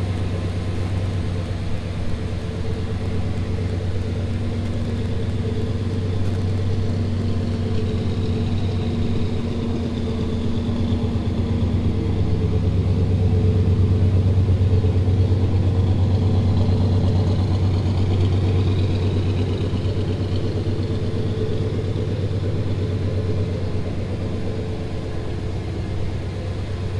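1994 Ford SVT Lightning pickup's 5.8-litre V8 idling steadily, getting a little louder around the middle.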